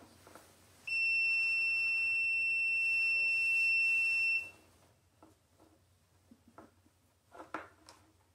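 Water-leak sensor's alarm buzzer signalling water on its sensor wire: one steady high-pitched beep lasting about three and a half seconds, starting about a second in. A few faint handling clicks and rustles near the end.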